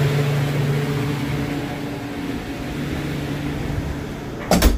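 Steady hum of galley refrigeration machinery: a low drone with a couple of higher steady tones under a fan-like hiss. A single loud thud comes near the end.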